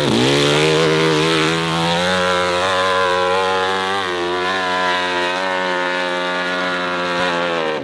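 Motorcycle engine climbing in revs over the first two seconds, then held at high, nearly steady revs.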